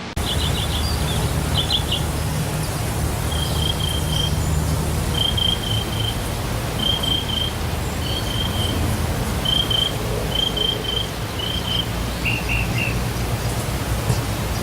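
Waterfall rushing steadily, with a little bird calling over it in short high chirps, groups of three or four quick notes repeated about once a second, the last group a little lower in pitch.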